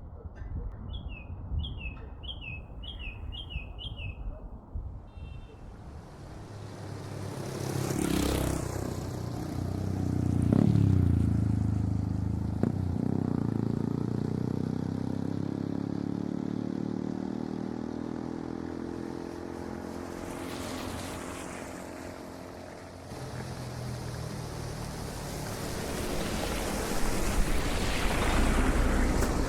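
City street traffic: a bird gives a quick run of about six chirps at the start, then vehicles pass close by, loudest about 10 seconds in and again near the end. One engine's hum slowly falls in pitch as it goes.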